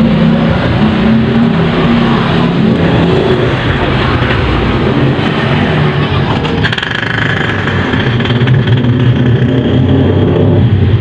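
A motor vehicle's engine running steadily and loudly, its pitch shifting a little over time, with a higher whine joining about two thirds of the way through.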